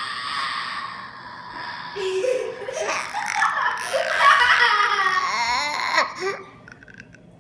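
An 11-month-old baby making funny noises and laughing: a long breathy noise at first, then high squealing laughter that rises and falls, cutting off suddenly about six seconds in.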